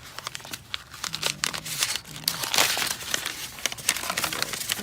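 Plastic packaging of a new brake pad set crinkling and rustling as it is handled and opened, with a dense run of small irregular crackles, loudest around the middle.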